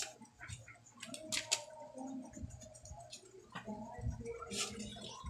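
Hands working skin during a hilot massage: soft squishing and scattered, irregular clicks, the sharpest about a second and a half in and again near the end.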